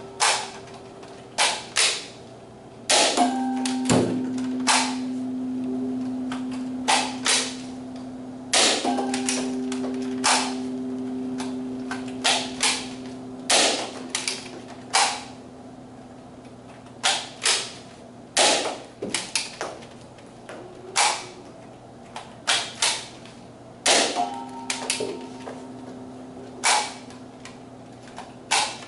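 Nerf Rival foam-ball blaster firing repeatedly, sharp snapping shots at irregular intervals, sometimes two or three in quick succession. A steady low tone holds for several seconds at a time between the shots.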